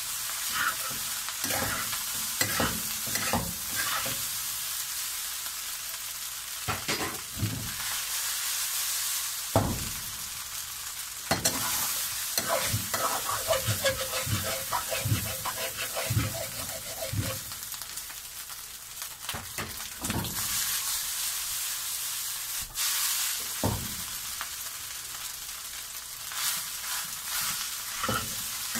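Fried rice with crab sticks being stir-fried in a wok: a steady sizzle, broken by repeated scrapes and knocks of a metal spatula against the pan as the rice is tossed.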